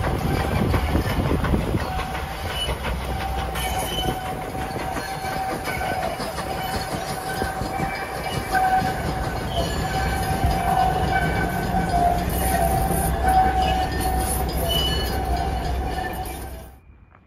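Steam-hauled heritage passenger carriages rolling past, the wheels rumbling on the rails with a wavering thin squeal and scattered higher squeaks over it. The sound cuts off abruptly near the end.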